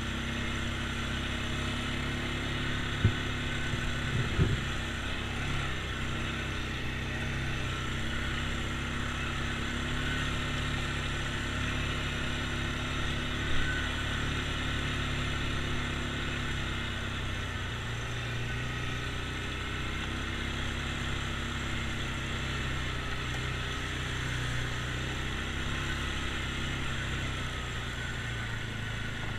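ATV engine running steadily while riding a rough dirt trail, with a few sharp knocks about three, four and a half, and thirteen and a half seconds in.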